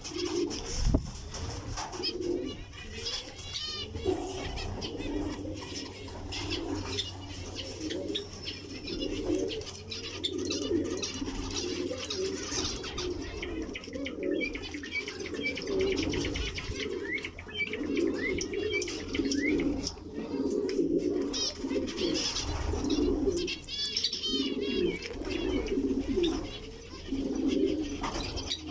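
Caged doves cooing over and over, with small birds, likely the zebra finches, chirping high above them now and then.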